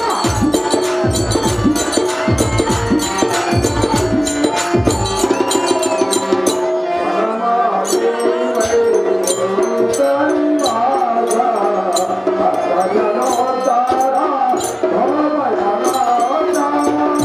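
Bayalata folk-theatre music: a voice singing a wavering melody over a barrel drum and fast jingling percussion. The drum beats heavily for the first few seconds, drops back, and returns near the end.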